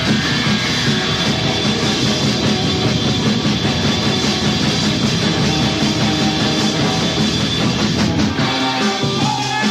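Early-1980s rock band recording playing loud and dense. Near the end the bass drops away and the sound thins out.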